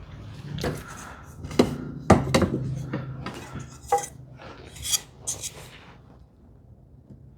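A run of sharp knocks and clinks, about eight in six seconds with uneven gaps, from hand tools and wooden parts being handled on a workbench during a mortise-and-tenon glue-up.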